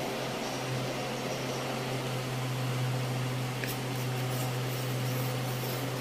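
Steady low mechanical hum, with faint light clinks of a steel spoon stirring cornflour and water in a steel bowl from about halfway through.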